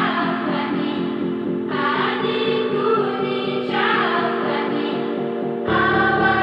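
Background music: sustained chords that change about every two seconds over a quick, steady pulse.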